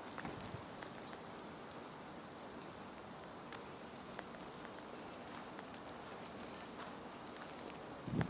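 Quiet outdoor street ambience during snowfall: a steady hiss with scattered faint ticks and a couple of brief high bird chirps about a second in. Near the end comes a low thump as the phone is swung about.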